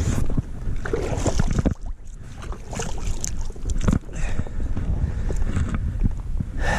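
Hands splashing and swishing in lake water over the side of an inflatable boat, rinsing off fish blood, in irregular splashes with brief lulls. Wind rumbles on the microphone throughout.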